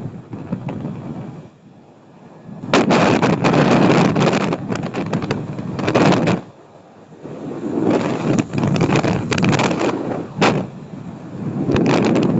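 Gusting wind buffeting the microphone as a loud rumbling rush that surges and drops away in waves, with a few sharp pops where gusts hit.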